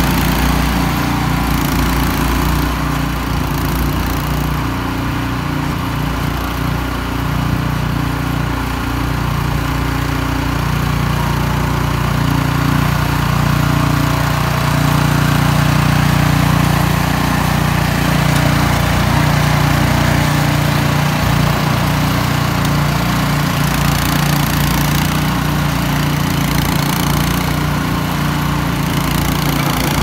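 Cub Cadet 3X 30 HD three-stage snow blower's engine running steadily under load while it clears snow and blows it out of the chute; it gets a little louder near the middle.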